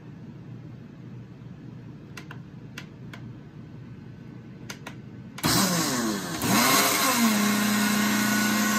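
Countertop blender with a glass jar starting up about five seconds in and crushing thick carrot pulp with dates and raisins: the motor speeds up, dips briefly, then runs steady. A few light clicks come before it starts.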